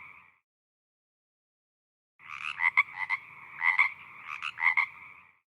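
A frog calling: a buzzy croaking trill that starts about two seconds in and lasts about three seconds, with several louder pulses.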